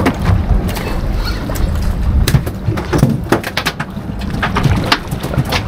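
Boat at sea with a steady low rumble, plus many irregular sharp knocks and clatter on board.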